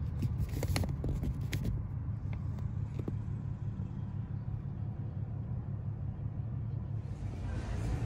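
Steady low rumble of a car driving, heard from inside the cabin, with a few light clicks in the first two seconds.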